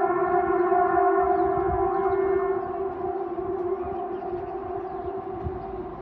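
Air raid siren sounding a steady, unwavering tone during a test; about two and a half seconds in it grows fainter and thinner as its higher overtones fade.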